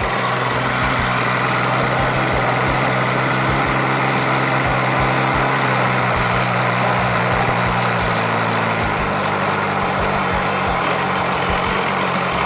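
Nitro-fuelled glow engine of an RC model airplane running steadily at a mid throttle setting. Its note drops a little about nine seconds in.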